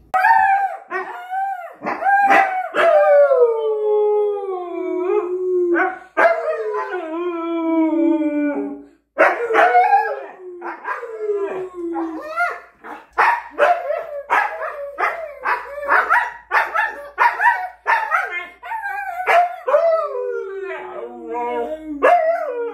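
Siberian husky howling and 'talking': long calls that slide down in pitch in the first half, then a quick run of short yelping calls, and another long falling howl near the end.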